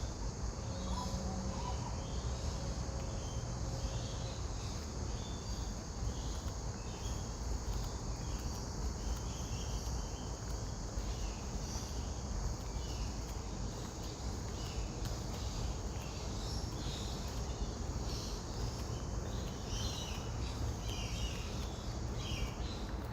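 Outdoor ambience: a steady low rumble under a faint, continuous high-pitched insect-like tone, with many short high chirps scattered throughout and growing busier near the end.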